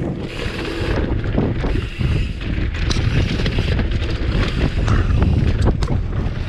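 Wind rushing over an action camera's microphone as a mountain bike descends a dirt trail, with the tyres rolling over the dirt. A few sharp clicks and knocks from the bike come through, about three seconds in and twice near the end.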